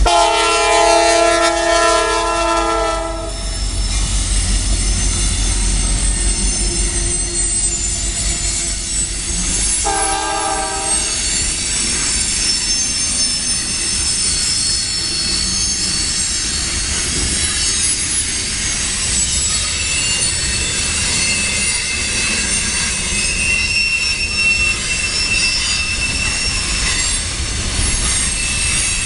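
CSX freight locomotive's multi-tone horn sounds a long blast that ends about three seconds in, then a short blast around ten seconds. After that the freight cars roll past over a steady rumble, their wheels squealing in thin high whines as the flanges grind against the rail on the sharp curve.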